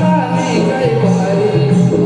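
Live Naman folk-theatre music: a melody over a steady drum beat, with high jingling strokes about twice a second.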